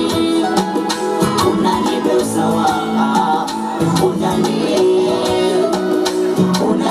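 Upbeat dance music with a steady beat, played loud over stage loudspeakers.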